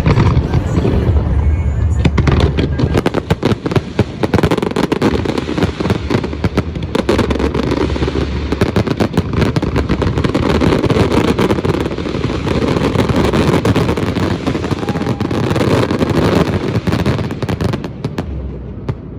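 Fireworks going off in rapid succession, a dense crackle of many bangs with heavy low thumps in the first couple of seconds, mixed with music; it cuts off suddenly about a second before the end.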